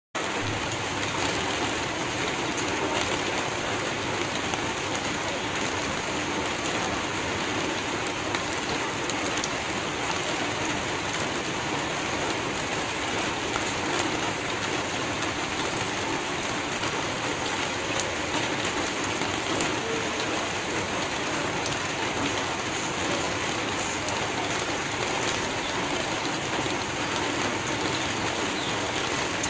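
Steady rain falling, an even hiss with scattered faint ticks of drops.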